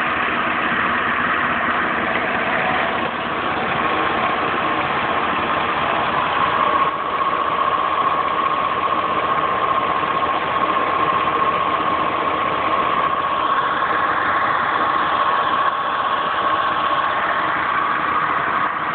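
Engine idling with a steady whine, which the owner suspects comes from a failing water pump.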